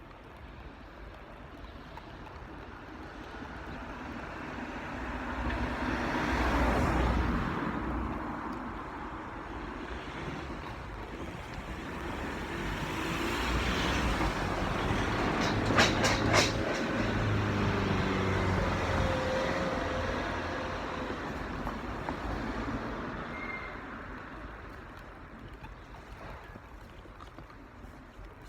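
Vehicles passing on a road: a quick swell of tyre and engine noise rising and fading about seven seconds in, then a longer, heavier pass with a low engine hum and a few sharp clicks at its loudest, fading away near the end.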